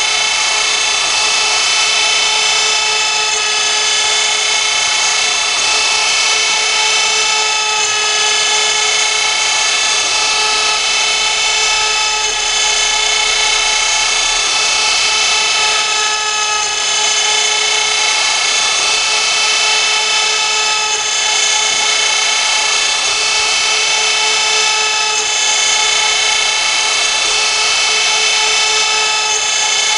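CNC router's high-speed spindle running steadily, a high whine of several steady tones over a rushing hiss, holding the same pitch throughout.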